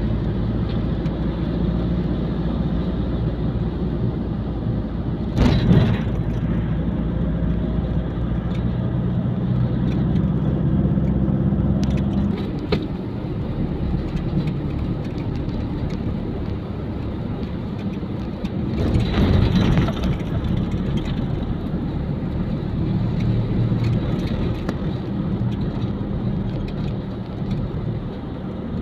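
A car driving in city traffic, heard from inside the cabin: steady engine and road noise, with a brief loud rush about five seconds in and a longer swell around twenty seconds.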